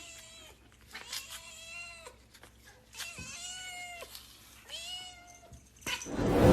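A kitten meowing four times, each call about half a second to a second long, rising then falling slightly in pitch. Near the end a loud rush of noise swells up.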